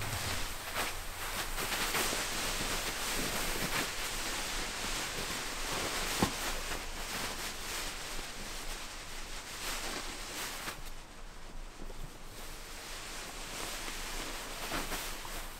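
German wirehaired pointer puppies and their mother playing and scuffling on cushions and pavers: steady rustling with many small knocks, and one sharp click about six seconds in.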